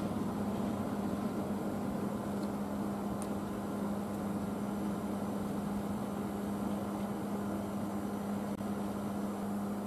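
Steady mechanical hum with one constant low tone, heard inside a railway passenger coach.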